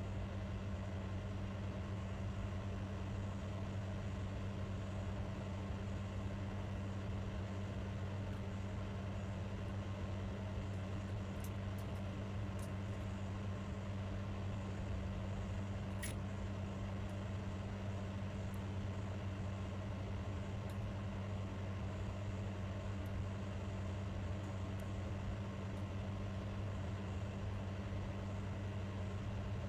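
A steady low hum that holds an even level throughout, with a few faint clicks and one sharper click about sixteen seconds in.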